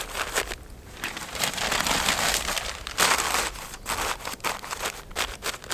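Sheets of newspaper being crumpled and pushed by hand into the gap between two logs as fire tinder, crinkling in several bursts with brief pauses.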